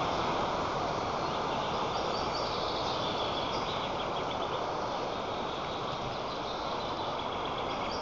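Steady wind rushing over the nest camera's microphone, with faint high bird chirps about two seconds in and again near the end.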